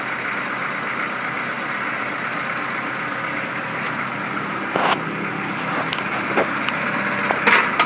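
Kubota L4240 tractor's diesel engine running steadily, with a sharp knock about five seconds in and two more near the end as hydraulic pressure forces the BH92 backhoe's tight-fitting mounting pins loose.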